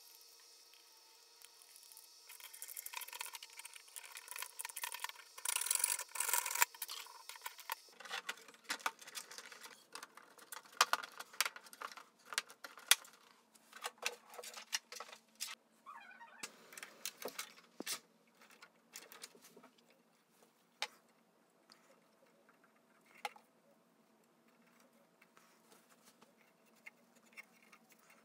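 Hand work on 3D-printed plastic plane parts and small tools: a few seconds of scratchy rustling and scraping, then scattered light clicks and taps of plastic and tools, thinning out to faint sounds in the last third.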